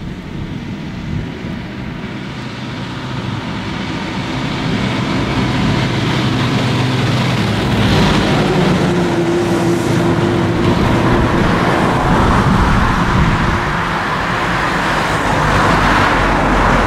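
Airbus A340-300 jet airliner's four CFM56 turbofan engines spooling up as the aircraft begins its take-off roll, a steady jet roar with a low hum that grows steadily louder.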